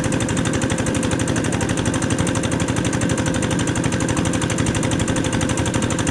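Kubota DC688Q combine harvester, fitted with the engine of a DC95, running steadily while harvesting rice: a diesel engine with a fast, even pulsing clatter.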